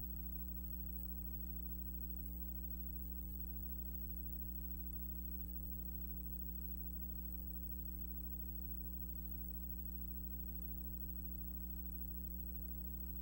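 Steady low electrical hum with a few higher overtones and nothing else, unchanging.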